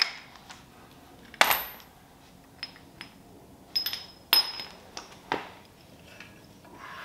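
A few sharp metal clinks and clanks, spaced a second or so apart, some with a brief ring: loose bolts and parts knocking against each other and against the engine as a generator is unbolted and lifted off a Ford flathead V8.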